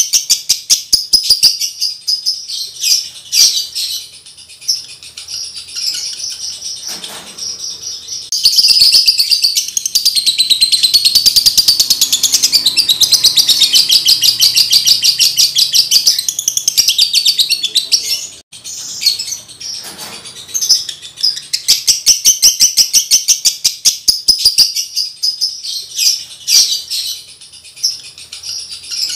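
Male lovebird in breeding condition singing a long, high-pitched chattering song of rapid clicks and trills. It runs unbroken for about ten seconds in the middle, with shorter bursts and brief pauses before and after.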